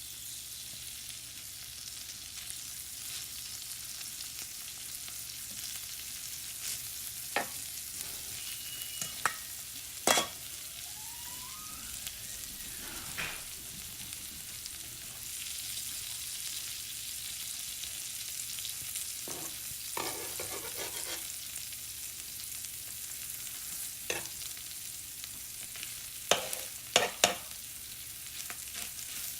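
Bread and chicken frying in butter in a very hot skillet: a steady sizzle, with a few sharp clicks and knocks of utensils against the pan, several close together near the end.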